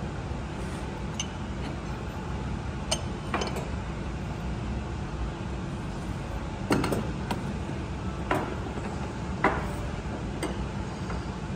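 Ceramic dishes and a metal pot being set down on a wooden counter and an induction hob: about half a dozen scattered clinks and knocks over a steady low background hum.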